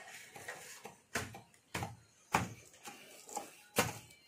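A wooden stick beating a folded plastic sack on a concrete floor, crushing laddu mixture inside it: about five dull thuds, one every half second or so, starting about a second in.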